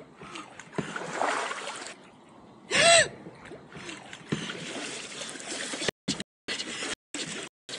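A kayaker's short, high, startled cry that rises and falls in pitch, about three seconds in, amid splashing strokes of a double-bladed kayak paddle pulled hard through the water. The sound cuts out in several short gaps near the end.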